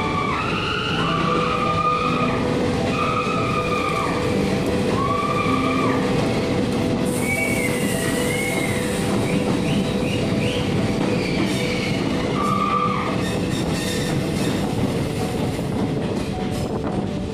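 Passenger train running through a tunnel: steady rumble of wheels on the rails, with wavering high-pitched squeals from the wheels that come and go every second or two.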